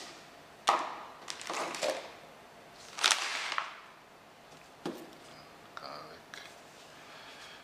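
Plastic bag of cassava cubes being handled and crinkled, in several short rustling bursts with a sharp knock or two.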